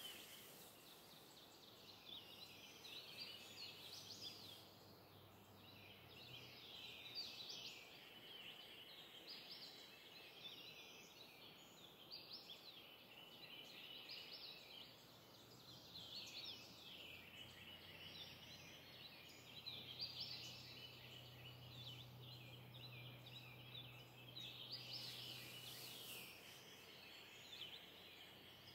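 Morning chorus of several songbirds, faint, with many short chirps and trills overlapping in dense clusters every few seconds.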